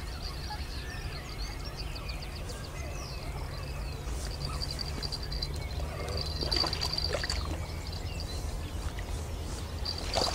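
Birds singing in the open, with a high rapid trill that repeats, over a low steady rumble. A short cluster of scuffling noises comes a little past the middle.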